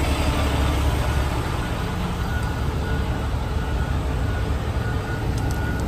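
Steady freeway traffic noise with a low engine rumble underneath, continuous and even.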